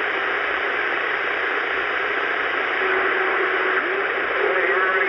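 Cobra CB radio receiving on channel 6 (27.025 MHz) with no one talking: a steady hiss of band static, with a faint steady tone about three seconds in and broken, garbled voices starting to come through near the end.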